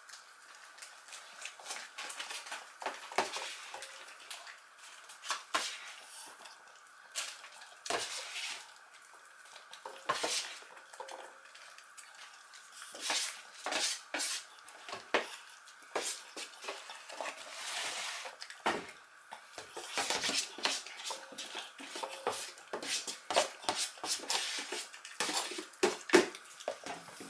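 Small dog eating from a bowl on a tile floor, the bowl clinking and scraping irregularly as it eats.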